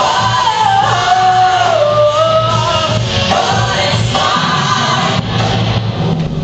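Live music: a woman singing held notes that slide up and down, over a steady bass line.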